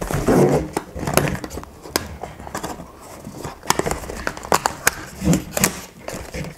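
Small cardboard retail box being handled, turned over and its end flap opened: rustling and scraping of cardboard with many sharp clicks and taps.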